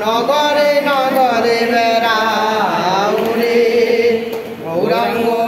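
Group devotional chanting (kirtan): a man leads and several voices sing along in long held notes that slide between pitches, dipping briefly about four and a half seconds in.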